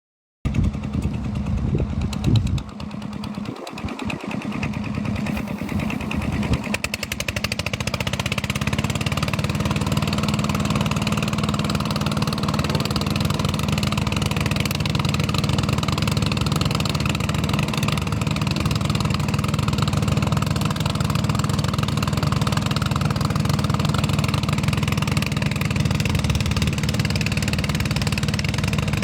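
An engine running, uneven for the first several seconds and then settling into a steady run from about eight seconds in.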